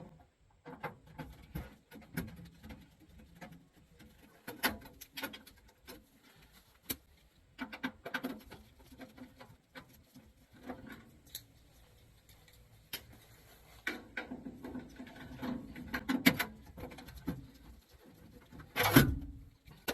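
Hand work on metal parts and tools: scattered clicks, taps and rubbing at an uneven pace, with a louder knock near the end.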